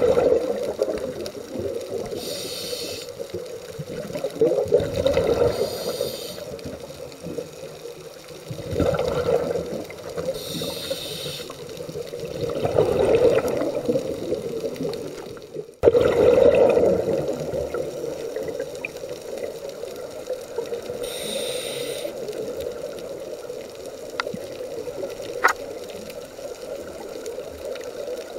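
Scuba diver breathing through a regulator underwater: a high hiss on each inhalation and a rush of bubbles on each exhalation, repeating every few seconds. A small click comes near the end.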